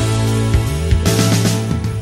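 Instrumental background music: held notes over a bass line, with a beat every half second or so.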